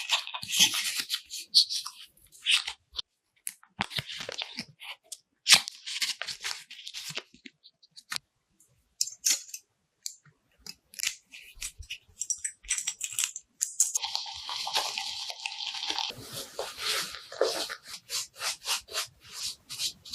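Razor blade scraping through stubble in short rasping strokes with brief pauses, with one longer drawn-out stroke past the middle. Near the end the strokes come quickly and regularly, two or three a second.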